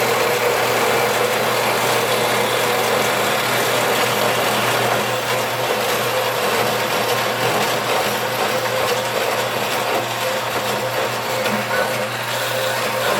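Band saw running steadily while its blade cuts through thick brass stock: a steady motor tone over the even noise of the cut.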